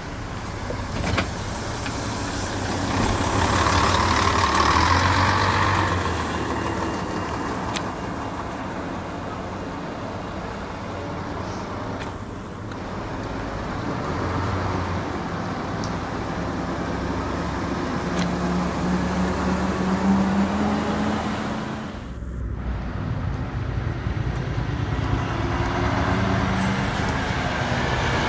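Diesel bus engines running as single-deck service buses move off, the engine note rising with acceleration about two-thirds of the way through. After a brief break, a double-decker's engine runs close by near the end.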